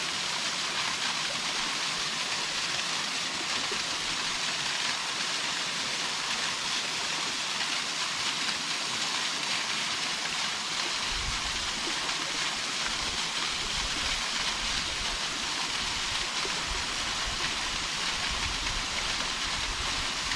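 Waterfall: a steady hiss of falling water, even throughout, with a low rumble coming and going from about halfway.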